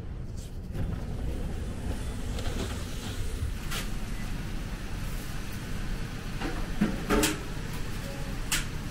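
Steady low rumble of a small restaurant's interior with a few sharp clinks and knocks, the loudest about seven seconds in.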